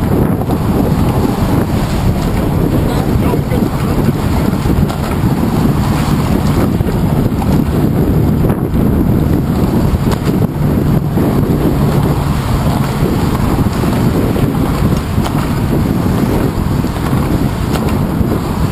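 Wind buffeting the microphone of a handlebar-mounted GoPro on a moving bicycle: a loud, steady rumble.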